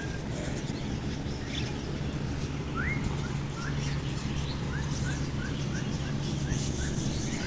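Small birds chirping: short, quick rising chirps, scattered at first and then a quick run of them in the middle, over a steady low hum.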